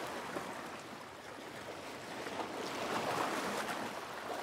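Sea noise aboard a sailboat under way at sea: water washing past the hull, with no steady tone, swelling once about three seconds in.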